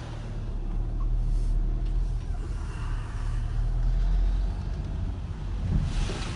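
A car driving slowly, heard from inside the cabin: a steady low engine and road rumble that eases a little after about four seconds.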